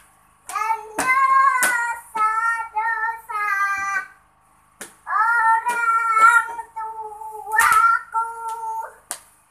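A young girl singing in a high voice, in phrases with long held notes and short pauses between them. A thump sounds near the end.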